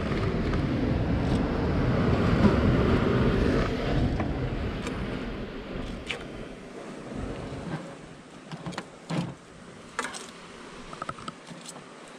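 A loud rush of wind on the microphone swells and fades away over the first seven seconds. After it, metal tongs tap and clink a few times against a frying pan as crabs are lifted out.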